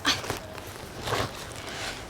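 Footsteps, with two clearer steps about a second apart.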